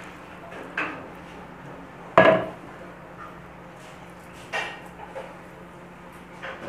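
A large kitchen knife chopping minced chicken and goat fat on a cutting board by hand: four separate knocks of the blade about two seconds apart, the loudest about two seconds in.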